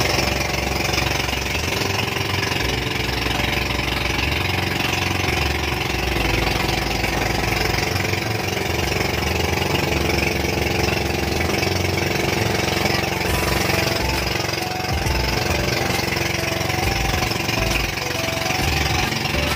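Outrigger boat's engine running steadily while the boat is under way, a loud, even drone with the rush of wind and water over it.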